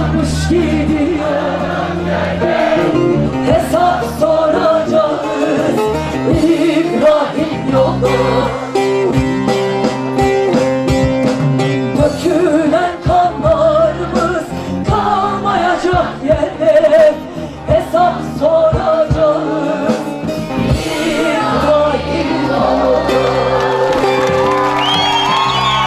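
Live band music with singing and drums. Near the end, the crowd whoops and cheers over the music as the song closes.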